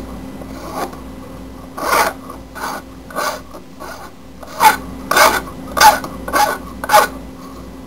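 Hand file rasping against the cut edge of a small metal tube, deburring it in short strokes. The strokes are light and sparse at first, then come about every half second and louder through the second half.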